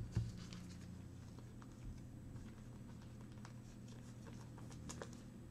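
Faint rustling and light scratchy clicks of trading cards and gloved hands being handled, with a soft knock just after the start, over a low steady room hum.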